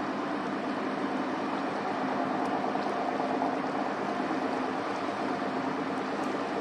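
Steady drone of a ship's engines, several low steady tones over a rushing wash of water and wind noise.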